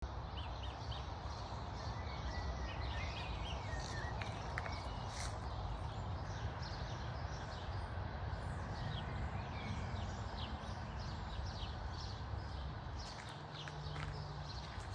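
Many small birds chirping and twittering throughout, over a steady low rushing noise. A low steady hum starts near the end.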